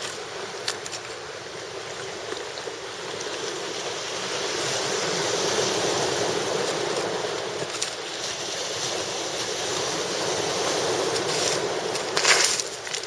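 Sea waves washing in, a steady rush that swells and eases, with a brief louder burst near the end.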